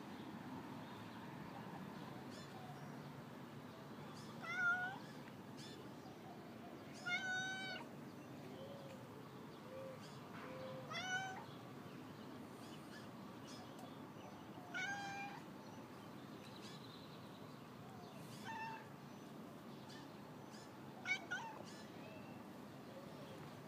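A stray cat meowing about six times, short calls a few seconds apart, each rising in pitch at the end.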